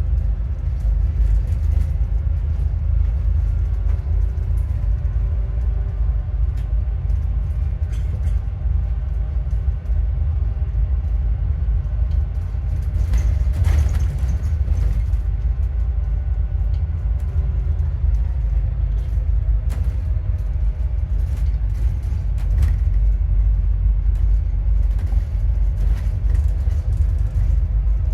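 Alexander Dennis Enviro400MMC double-decker bus heard from inside while driving: a low engine and road rumble, with a whine of several evenly spaced tones that drift up and down in pitch as the bus speeds up and slows, and occasional rattles. The whine is the sign of a failing alternator.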